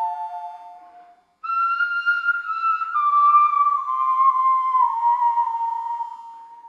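Divje Babe bone flute, made from a cave bear femur, playing slow held notes. A low note sinks and fades out, then after a brief pause a higher phrase steps slowly down in pitch and fades away.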